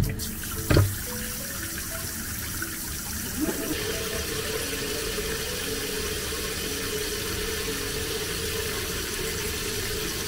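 Two sharp knocks in the first second, then water runs steadily as a toy poodle's paws are washed after a walk.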